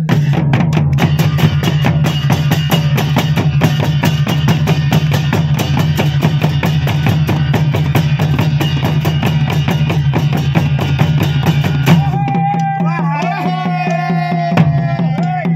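Nepali folk drums, shoulder-slung barrel drums and small kettle drums, beaten with sticks and hands in a fast, steady, driving rhythm. About three-quarters of the way through the strokes thin out and a held, wavering tone sounds over them.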